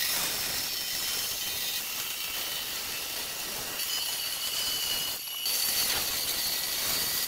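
Power tool running steadily: a continuous hiss with faint high whines, briefly dropping out about five seconds in.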